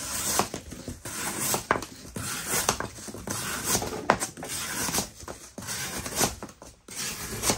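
Olight Oknife Beagle folding knife slicing through single-layer corrugated cardboard: a run of rasping cuts, with sharp ticks every second or so.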